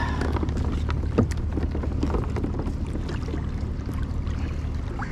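Water against a fishing kayak's hull, with wind rumbling on the microphone and a few light knocks, the clearest about a second in.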